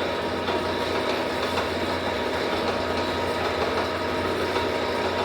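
Motor-driven tyre bender running steadily with an even, humming drone while a steel wheel tyre is rolled through it.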